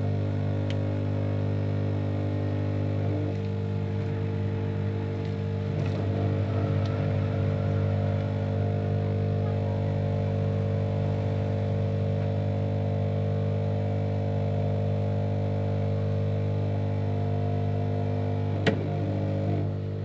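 Electric heat gun running steadily, its fan motor humming while it warms a phone's stick-on back skin so the adhesive bonds. A sharp click comes near the end.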